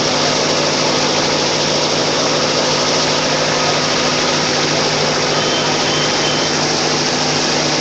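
An engine running steadily with a constant low hum, under a loud, dense, unbroken din.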